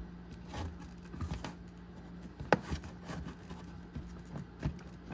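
Light plastic clicks and taps as a hinged brake-fluid access panel is pressed and snapped into the plastic cowl cover, the sharpest click about two and a half seconds in.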